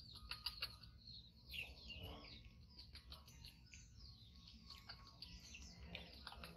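Faint, high-pitched chirping calls from small animals, many short chirps and glides, with a few small clicks among them.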